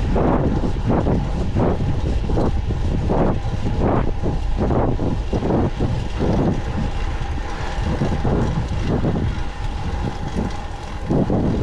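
Wind buffeting the microphone of a camera on a moving fixed-gear bicycle, in irregular gusts over a low road rumble. A faint steady whine stops near the end.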